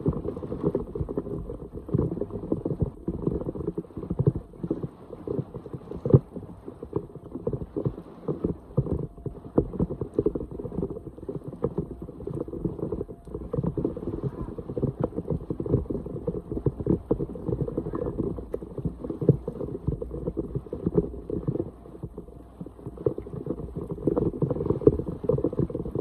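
Floodwater splashing and sloshing, with irregular knocks and scrapes, as debris is cleared by hand or tool from a clogged street drain.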